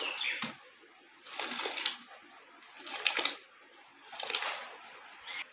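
Washed rice being swept by hand off a steel tray into a pot of boiling water, in three splashing, rattling pours about a second and a half apart.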